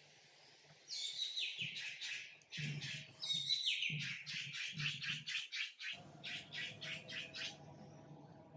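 A rapid series of short, high-pitched chirping calls, about five a second, in two runs with a brief break between them.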